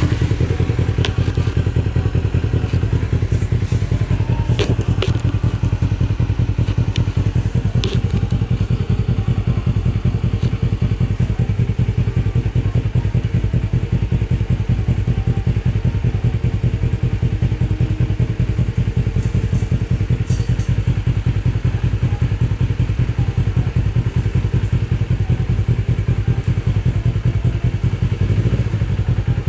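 Kawasaki Ninja 250R parallel-twin engine idling steadily through a Yoshimura aftermarket exhaust, with a few sharp clicks in the first several seconds.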